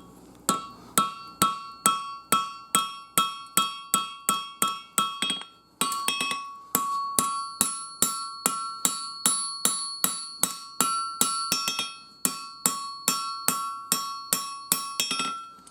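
Blacksmith's hammer striking a hot knife blank on an anvil in steady forging blows, about three a second, with a brief pause about six seconds in. Each blow leaves a clear metallic ring from the anvil. The blows are drawing a swale into the blade.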